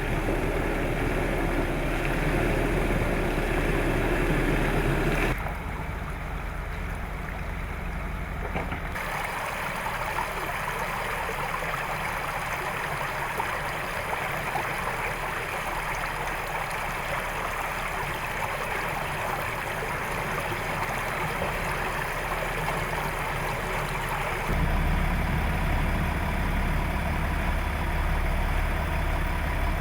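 Land Rover Defender 90's diesel engine running at low revs with stream water rushing around it. The mix changes abruptly several times: the engine hum fades back behind the water through the middle and comes up stronger again about five seconds before the end.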